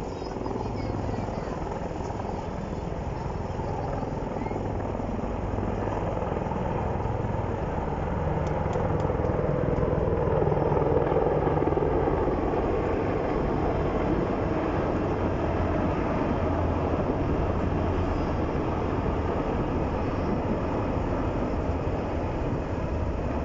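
A formation of military helicopters flying over, a continuous rotor and engine drone with a steady low throb that grows louder to a peak about halfway through and then holds.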